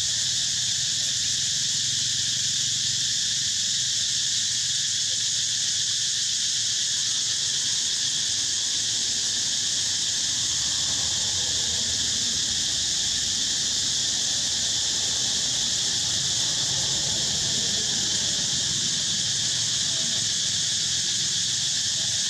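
Steady, high-pitched drone of a chorus of insects.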